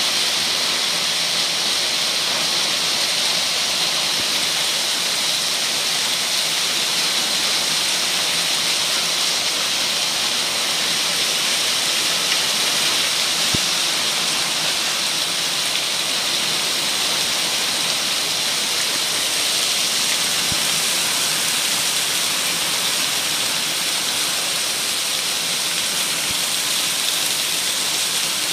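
Heavy rain mixed with small hail pellets pelting down in a steady, dense hiss.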